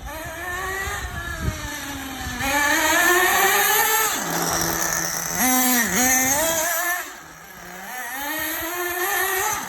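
Nitro RC car's small two-stroke glow engine revving up and down as the car drives, its pitch rising and falling over and over. It drops quieter about seven seconds in, then builds again.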